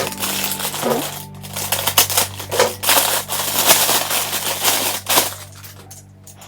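Packaging being handled: rapid, irregular crinkling and rustling over a steady low hum. The handling dies down about a second before the end.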